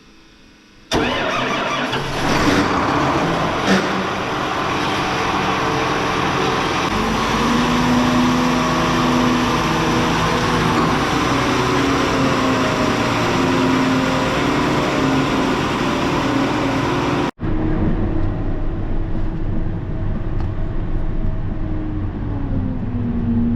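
A vehicle engine running under way, its pitch rising and falling with engine speed over road or driving noise. About 17 seconds in there is an abrupt cut to a duller-sounding run of the same kind of engine noise.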